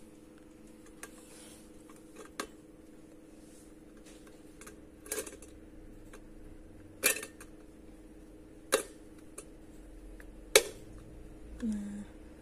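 Sharp clicks and clinks of a stainless-steel mesh tea strainer and its plastic rim being set into a glass teapot and handled. There are about five distinct knocks a second or two apart, over a steady low hum.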